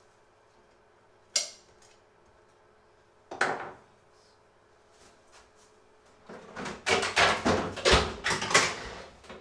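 A sharp clack about a second in, as a table knife is set down on a wooden board, then a short rustling scrape, then about three seconds of rapid knocking and clattering of kitchenware being shifted about in a low kitchen cupboard.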